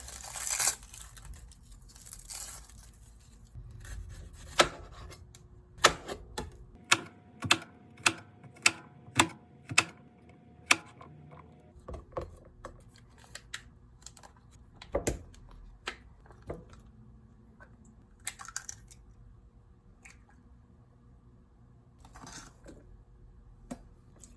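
Kitchen food-prep sounds: rustling at first, then a run of sharp taps about two a second, followed by scattered knocks.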